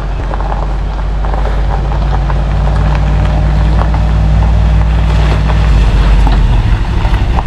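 A pickup-based tow truck's engine running as the truck backs up, growing louder as it comes closer. The engine note changes about six seconds in.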